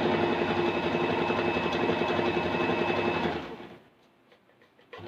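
Usha Allure electric sewing machine running at a steady speed, stitching the first side of a buttonhole (step 1 of the four-step buttonhole). It slows and stops about three and a half seconds in.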